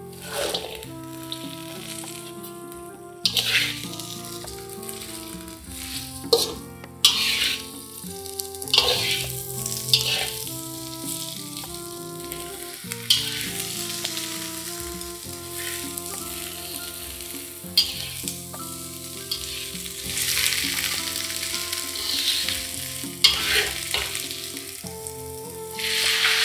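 Oil sizzling in a wok as spice paste, salted fish bones and then chopped vegetables are stir-fried, with a metal spatula scraping and tossing them in strokes every second or two. Near the end water is poured in with a louder rush.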